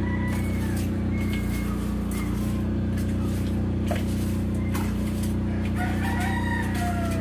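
A rooster crowing, its longest call near the end falling in pitch, over the steady low drone of construction vehicles' engines.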